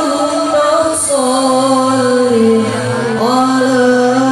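Sholawat sung by a hadroh group's singer through the PA, holding long notes with gliding ornaments over a steady low sustained accompaniment.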